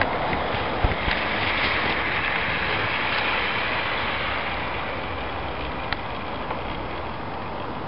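An 00 gauge model train, a diesel locomotive hauling a coach, running along garden track: a steady running noise of wheels and motor that slowly fades as it moves away, with a few light clicks.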